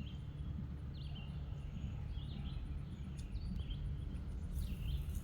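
Outdoor pond-side ambience: a bird calls again and again with short chirps about once a second, over a steady low rumble and a faint high ticking of insects. A brief hiss comes near the end.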